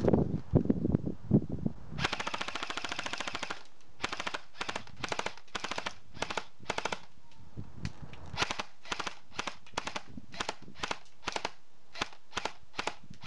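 Airsoft M4 rifle firing: a rapid full-auto burst about two seconds in, lasting about a second and a half, then a long run of single shots and short strings, about two to three a second.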